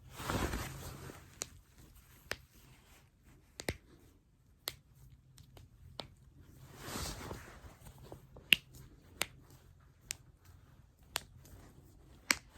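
Human joints being cracked: about nine sharp single pops at uneven intervals, the loudest about two-thirds of the way through. Two longer stretches of noise, near the start and around the middle, sit between the pops.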